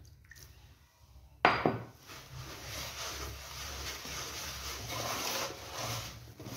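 Hands rubbing and scraping damp semolina against a woven wooden bowl, a steady grainy rustle from about two seconds in, as water is worked into the semolina and fat for mbesses dough. A single sharp knock about a second and a half in is the loudest sound.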